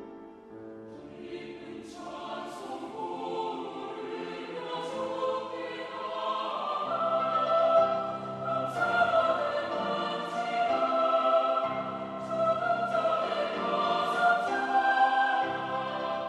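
Church choir singing in full harmony over piano accompaniment; the voices enter about two seconds in and build steadily louder through the phrase.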